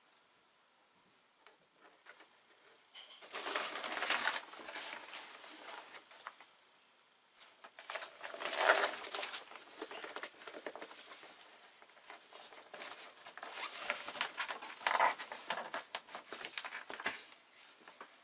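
A Laser sail's stiff Dacron cloth rustling and crinkling as it is lifted, folded and smoothed by hand, in three longer bursts with quieter handling between.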